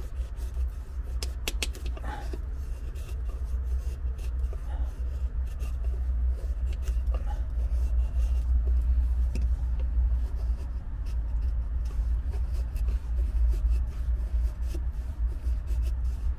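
Knife blade scraping down a wooden stick, shaving thin curls for a feather stick, in short strokes at irregular intervals. A steady low rumble runs underneath and is the loudest thing heard.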